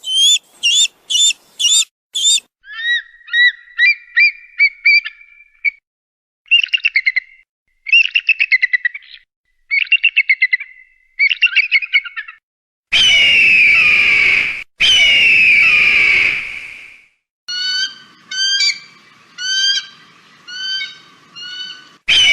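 Hawk calls played as a spliced sequence of different call types: a run of short repeated piercing notes, chattering bursts, then two long harsh descending screams, then a spaced series of sharp calls, with abrupt cuts between the segments.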